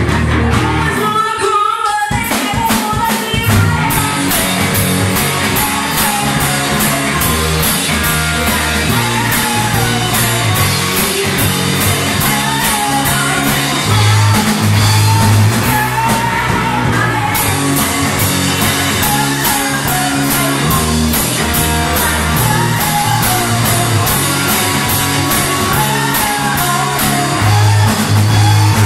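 Live rock band: a woman singing into a microphone over electric guitar, bass guitar and drum kit. The bass and drums drop out for a moment near the start, then the full band comes back in.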